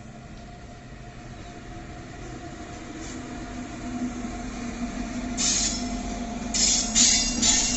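WAG-9H electric locomotive running past close by, its steady electric hum growing louder as it nears. About five seconds in, harsh high-pitched wheel-on-rail noise from its bogies sets in and is loudest near the end.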